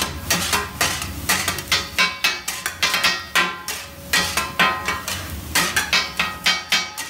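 Metal utensils clanking in a steady run of sharp strikes, about three a second.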